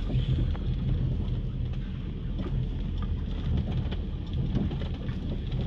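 Inside the cabin of a manual Suzuki car rolling slowly in first gear: the engine runs with a steady low drone under tyre rumble from the rough ground, with a few faint ticks.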